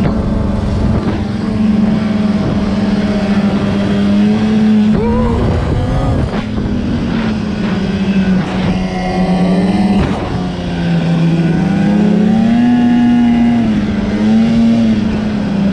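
Snowmobile engine running as the sled is ridden through deep powder snow. The engine pitch rises and falls as the throttle is worked, dipping briefly about five seconds in and again about ten seconds in.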